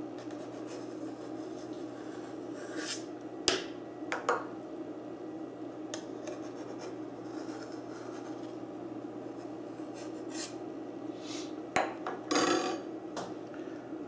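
A metal ladle clinking and scraping against a stainless stockpot while skimming foam off simmering veal stock. There is a sharp clink about three and a half seconds in and two lighter ones just after. A clink and a longer scrape come near the end, over a steady background hum.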